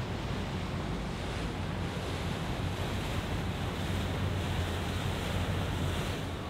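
Steady wind buffeting the microphone over rushing water, with a low, even engine rumble from boats underneath.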